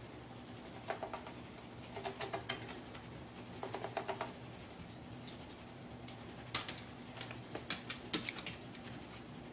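Plastic toys on a baby walker's activity tray clicking and rattling in several short bursts of rapid clicks as the baby handles them.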